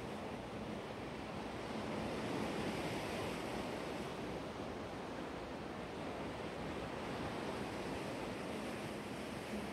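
Black Sea surf: a steady rush of waves washing on the shore, swelling a little a couple of seconds in.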